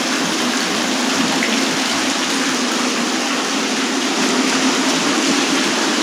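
Water from an indoor water feature's fountain jets spraying and splashing onto a wet floor: a steady, rain-like rush of water.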